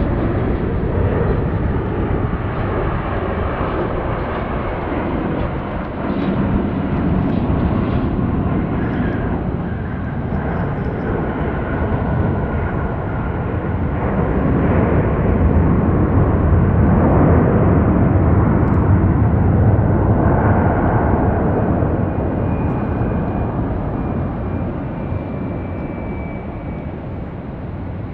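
Jet airliner engines running as the plane passes by, a steady rushing noise that builds to its loudest through the middle and fades near the end, with a thin high whine in the last few seconds.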